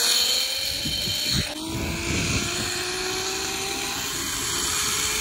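Zipline trolley pulley running along the steel cable, giving a thin whine that slowly rises in pitch as the rider picks up speed, over a steady rushing noise.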